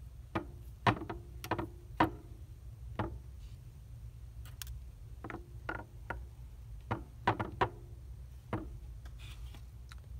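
Steel surgical instruments clicking: a needle holder's ratchet catching and releasing and forceps tips meeting, in about a dozen sharp irregular clicks, some in quick pairs, over a low steady hum.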